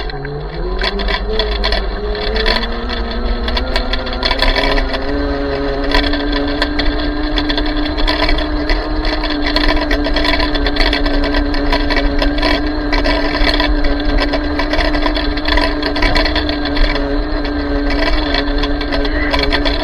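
ME1000 electric minibike's motor whining as it speeds up. The pitch rises over the first five seconds, then holds steady at cruising speed, over a constant low rumble and rattling clicks.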